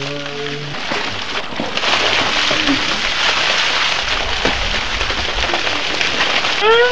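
Bucketfuls of ice water pouring and splashing down over people's heads, a steady rushing splash. A short yell opens it, and a rising shriek starts near the end.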